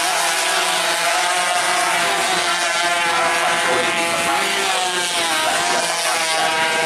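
Several 125 cc two-stroke underbone race motorcycles running at high revs, their overlapping buzzing engine notes rising and falling in pitch as the pack rides through the corners.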